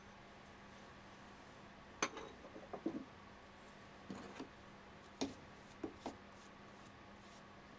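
Light clicks and knocks of metal parts being handled and set down on a bench grinder's sharpening rest. There is a sharp click about two seconds in, then scattered taps and clunks over the next four seconds, over a faint steady hum.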